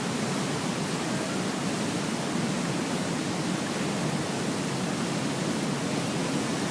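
Steady rushing of a large waterfall, an even noise with no breaks.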